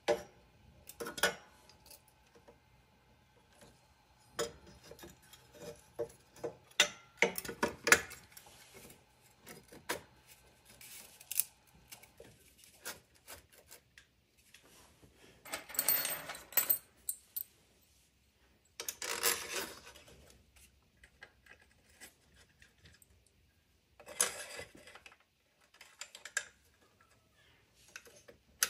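Aluminium rear end cover of a small generator's alternator being handled and fitted over the stator: irregular metal clinks and knocks, with a few longer rubbing sounds of about a second each in the second half.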